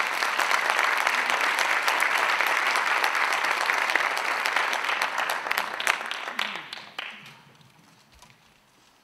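Theatre audience applauding, a dense steady clapping that dies away about seven seconds in.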